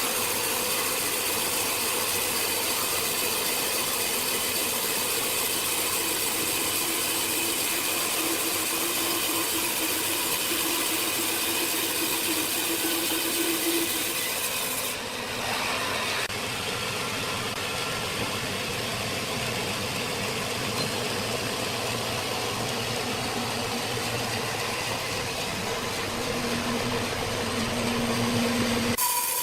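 Saw machinery running steadily while cutting through jackfruit wood, a continuous mechanical noise with a rattle. The sound changes abruptly about halfway through.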